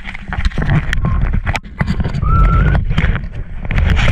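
Wind buffeting the microphone and water rushing along the hull of an RS600 dinghy under sail. Irregular knocks and clatter from the boat run through it, with a short rising squeak about two seconds in.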